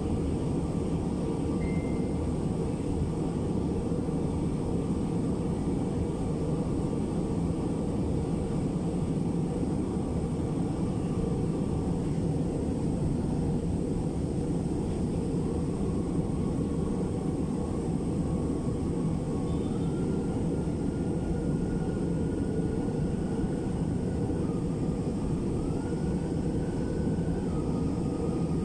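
Inside an MRT-3 light-rail car running along the elevated track: a steady rumble of the moving train, with a faint high whine that steps up and down in pitch a few times in the second half.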